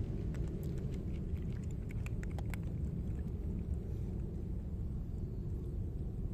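Two cats chewing dry kibble from a bowl: a run of small crisp crunches in the first couple of seconds, over a steady low rumble.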